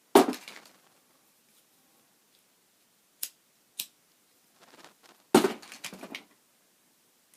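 Plastic lighters clattering and knocking together as they are handled in a box of lighters. There is a sharp clatter at the start, two single clicks a little past three seconds, and a longer rattle of knocks about five seconds in.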